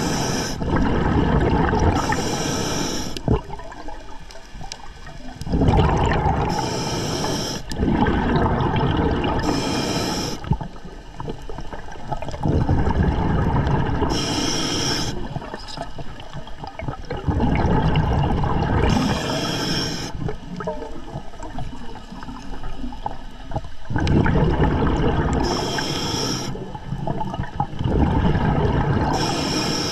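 A diver breathing underwater through an Atomic scuba regulator, a breath every few seconds: short, high hisses as air is drawn through the regulator, and longer rumbling rushes of exhaled bubbles.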